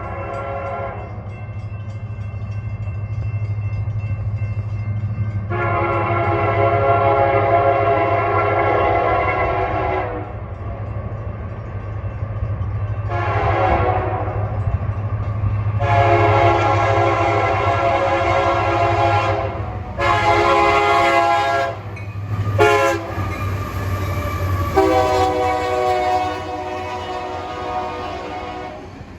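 Nathan K3LA/K3HA 'Narrow Font' three-chime locomotive air horn sounding a series of blasts. There is a long blast, a short one, then several longer blasts close together toward the end, over the steady low rumble of the train.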